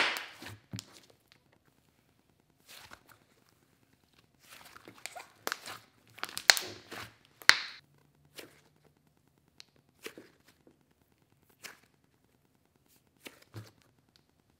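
Thick instant-snow slime squished by hand against a countertop: a loud squelch at the start, a cluster of crackling, tearing sounds about halfway through as it is squeezed in the fist, then a few sparse pops and crackles.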